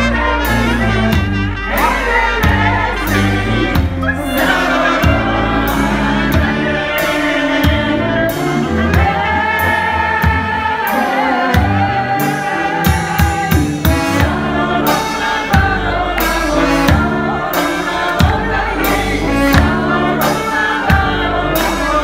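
Live Balkan brass-band music: two women sing together over brass horns playing held notes and a bass line, with a bass drum beaten in a steady rhythm.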